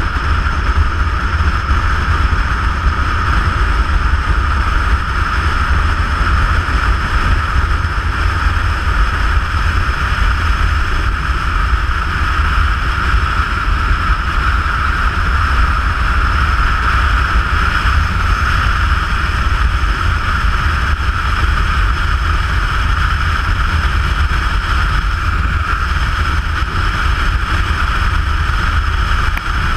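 Steady wind rush and riding noise from a motorcycle under way, a heavy low rumble with a hiss on top and no pauses, as picked up by a camera on the moving bike.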